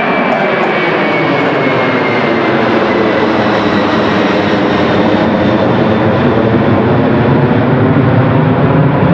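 Four-engined Boeing 747SP jet climbing out right after takeoff and passing overhead: a loud, steady roar with a high engine whine that slides down in pitch as it goes over and away. The low rumble grows stronger near the end.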